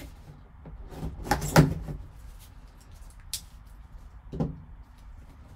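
Cardboard trading-card box being handled as its seal is slit with a serrated knife: a scraping, rustling cut about a second in (the loudest sound), a sharp click a little past three seconds, and a dull knock about four seconds in.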